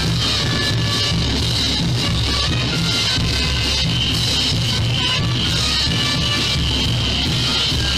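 Loud band music with a steady beat.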